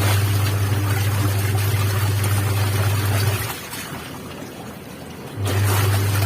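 LG washing machine motor running with water sloshing in the tub: the motor hums for about three and a half seconds, stops for about two seconds, then starts again.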